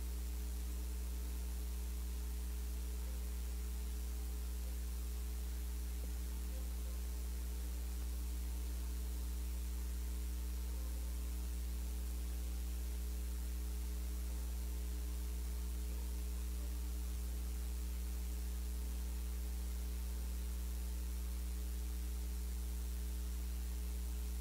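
Steady electrical mains hum with faint hiss, unchanging throughout; no music or speech.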